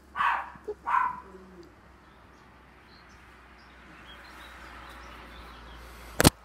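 Two short, loud animal calls about a second apart, then a background hiss that builds, and a single sharp click near the end.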